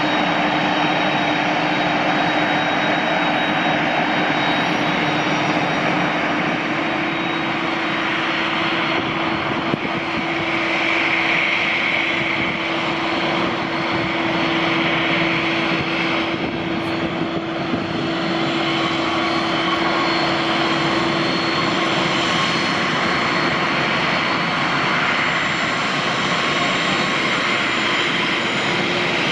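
Jet airliners' turbofan engines running at idle on the apron: a steady, even rush of engine noise with a held low hum and a fainter high whine.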